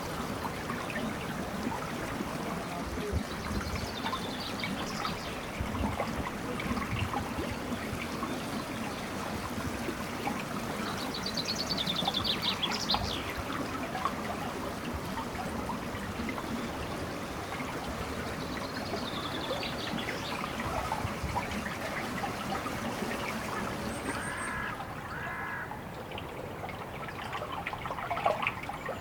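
Water trickling and splashing steadily, with a bird chirping in short bursts a few times.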